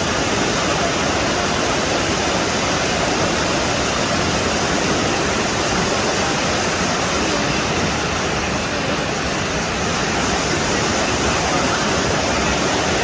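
Steady, loud rush of fast-flowing floodwater from a flash flood.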